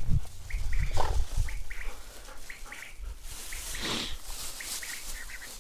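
Short high chirps repeating in twos and threes, several a second, from small creatures calling in the grass. In the first second and a half there are low thumps on the microphone, and about three and a half seconds in a breathy rush rises and fades.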